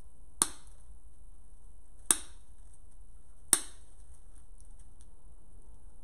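Cutters snipping through wire-cored artificial flower stems: three sharp snips, about a second and a half apart.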